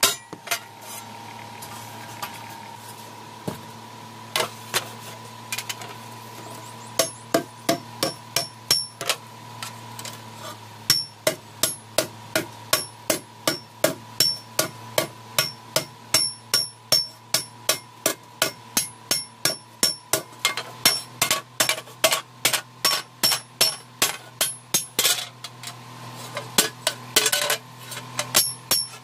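Blacksmith's hand hammer striking a red-hot iron plate on a small iron anvil block, each blow with a short metallic ring. There are a few scattered blows at first, then steady hammering at about two blows a second, over a steady low hum.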